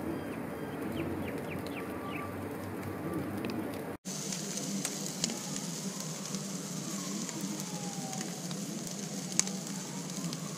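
Balmain bugs (slipper lobsters) sizzling on a barbecue grill: a steady hiss with scattered crackles and pops, one sharper pop near the end.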